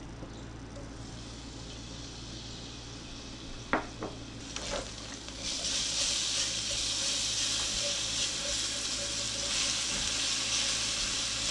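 Minced garlic frying in hot olive oil in a stainless steel pot, stirred with a spatula. A few sharp clicks a little over a third of the way in, then the sizzle gets much louder about halfway through and stays steady.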